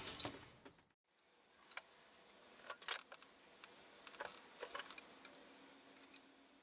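Faint, scattered clicks and taps from small electronic parts and hand tools being handled, among them large electrolytic capacitors being set against a circuit board; otherwise near silence.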